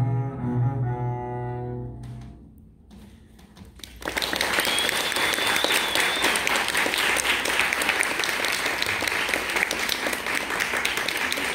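A chamber ensemble of piano, violin, cello and double bass holds its final chord, which fades out about two seconds in. After a short hush, the audience breaks into steady applause.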